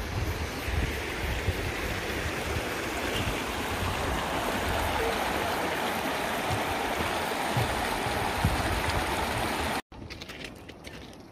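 Rocky mountain stream rushing and splashing over stones, a steady loud rush that cuts off abruptly near the end, leaving quieter open-air sound.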